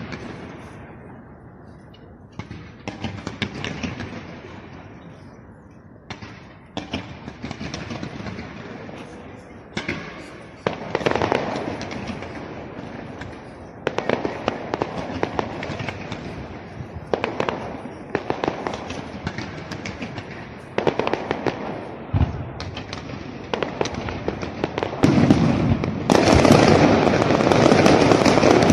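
Fireworks display: aerial shells going off in repeated sharp bangs with crackling. The bangs come every second or two, then merge into a dense, loud barrage over the last few seconds.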